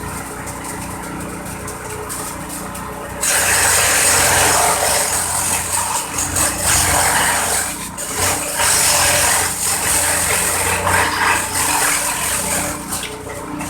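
Simple corn-stalk chopping machine running with a steady hum. About three seconds in, a loud rough shredding noise sets in as it chops corn stalks, surging and dipping in waves until shortly before the end.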